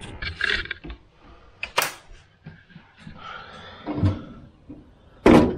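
A tall window being opened by hand: rustling and handle clicks, then the shutters pushed open, with a loud knock near the end.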